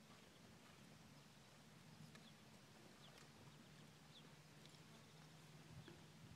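Near silence: faint outdoor background with a low steady hum and a few faint, short bird chirps scattered through.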